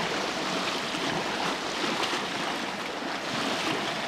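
Steady hiss of wind and lapping water, with no engine cranking or running.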